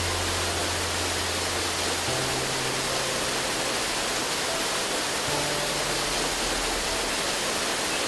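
Steady rushing noise of a tall waterfall, under soft background music of long held low notes that change twice.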